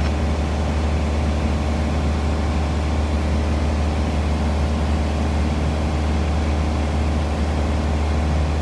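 Small airplane's engine droning steadily, heard from inside the cockpit: a constant low hum with no change in pitch or level.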